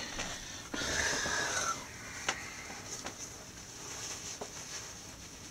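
Faint movement and handling noises from a person moving about in a small room: a rustle with a falling hiss about a second in, then a few scattered light clicks and knocks.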